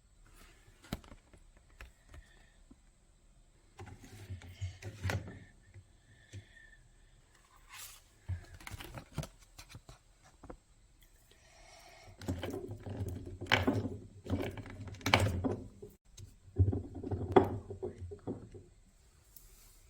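Hands handling toy parts and packaging: scattered clicks and taps, with several louder bursts of rustling and scraping in the second half.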